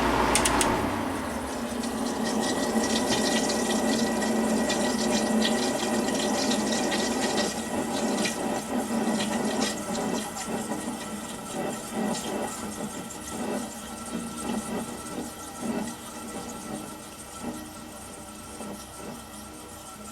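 1993 Kenmore 6,000 BTU window air conditioner with a rotary compressor and R-22 refrigerant. About half a second in there are a couple of clicks and the compressor's low hum stops. Then refrigerant gurgles and hisses through the coils, slowly fading.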